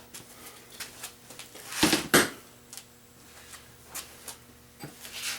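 Metal engine parts and tools clinking and knocking as they are handled during the teardown, with two louder knocks about two seconds in and another near the end.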